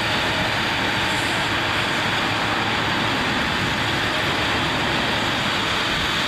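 Heavy eight-wheel tipper truck's diesel engine running steadily while its hydraulics raise the dump body to tip a load of soil.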